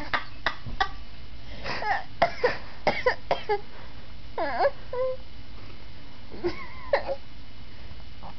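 A baby makes his 'turkey noise': a few short, high, squeaky yelps whose pitch dips and bends, among many small clicking mouth sounds, with short pauses between.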